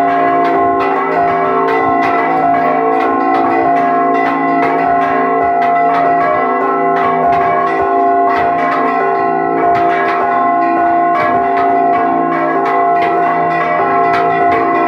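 Church bells rung in a repique: several bells struck in quick succession by hand through their clapper ropes, a continuous, loud clangor of several strikes a second whose tones ring on and overlap. Heard up close from inside the belfry.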